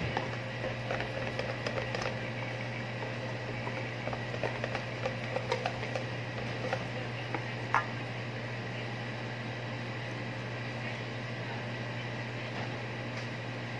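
Wire whisk beating cake batter in a stainless steel bowl: soft scraping with small irregular clicks of the wires against the metal, stopping about eight seconds in. A steady low hum runs underneath throughout.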